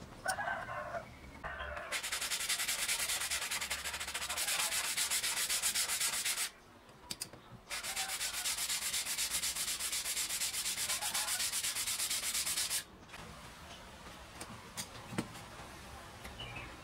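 Sandpaper rubbed by hand along a thin wooden strip in quick back-and-forth strokes. The sanding comes in two runs of about five seconds each, with a short pause between them.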